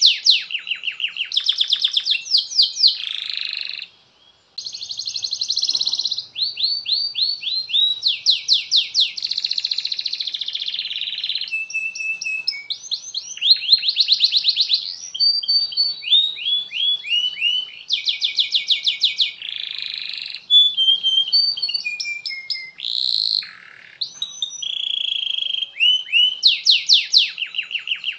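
Domestic canary singing a long song of rapid trills and rolls: fast runs of repeated high notes, each phrase lasting a second or two before switching to another, with one brief pause about four seconds in.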